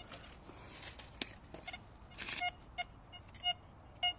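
Metal detector giving short repeated target beeps, two or three a second, as its search coil is swept over a dug hole, signalling metal in the soil. Rustling of dry leaves comes before the beeping starts, about a second and a half in.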